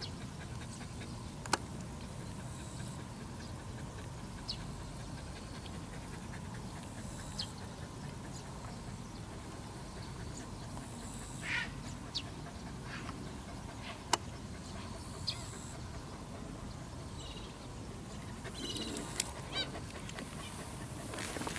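Gulls calling now and then across a mudflat, short scattered cries over a steady low background noise. Two sharp clicks stand out, one about a second and a half in and one near two-thirds of the way through.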